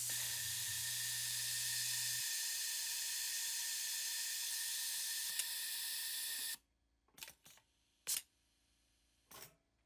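Compressed air hissing steadily from the pneumatic ABH-1A attachment on the sewing machine, then cutting off suddenly about six and a half seconds in. A few short puffs follow.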